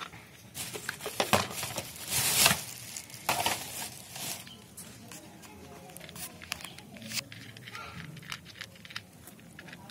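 Rustling, crinkling noise in several bursts over the first four seconds or so, the loudest about two and a half seconds in, followed by scattered light clicks and taps.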